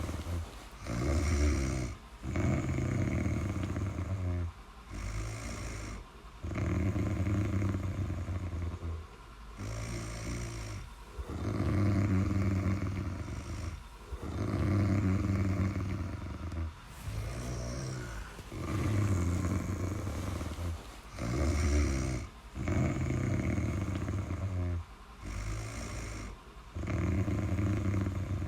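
Steady snoring: a loud, low snore alternating with a softer breath sound, one breath cycle about every four seconds.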